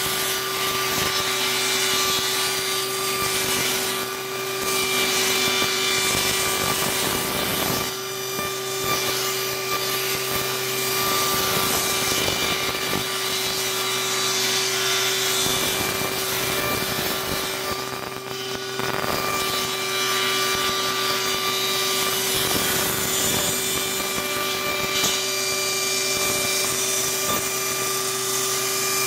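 Table saw ripping a pine board along the fence: the blade runs with a steady whine under the continuous noise of the cut, with a few brief dips in loudness as the feed slackens.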